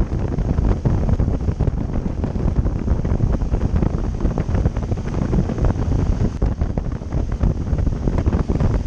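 Wind buffeting the microphone of a camera on a moving motorcycle: a loud, steady, choppy low rumble.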